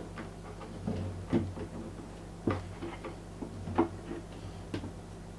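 About five light, scattered knocks and clicks as hands handle and check the screws of a plastic 4WD snorkel body.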